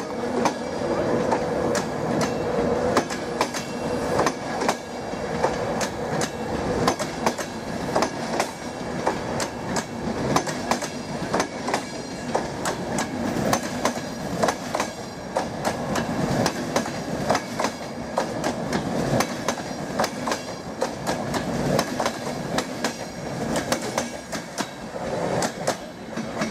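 InterCity 225 train of Mark 4 coaches with a Driving Van Trailer at the rear, rolling past. There is a steady rumble of wheels on rail, broken by a continual stream of sharp clicks from the wheels running over rail joints and points.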